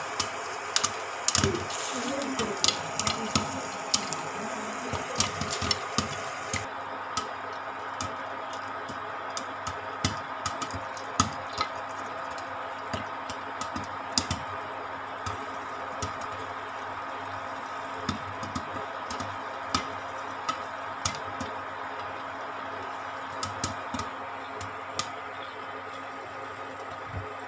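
Popcorn kernels popping in a covered pan with a glass lid: irregular sharp pops, thick in the first few seconds, then thinning to occasional single pops as the batch nears the end of popping. A steady hum runs underneath.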